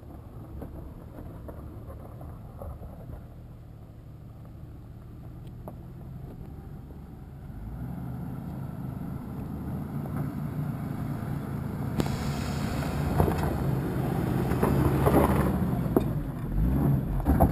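Jeep Wrangler engine running as it drives down a sandy off-road track and approaches, growing steadily louder until it passes close by near the end, with a few sharp knocks as it goes past.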